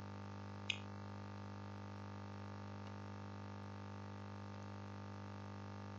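Steady low electrical hum, with one short click less than a second in.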